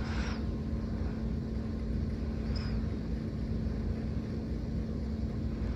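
Small Chinese-made mini ceiling fan running steadily on its lowest speed: a constant low hum with a steady tone and a faint rush of air.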